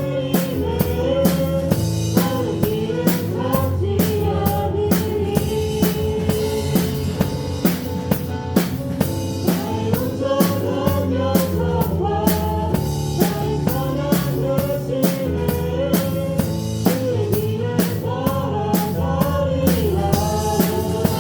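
Praise band playing a worship song with the drum kit up front: kick drum, snare and rimshots keep a steady beat under a sustained melody and bass.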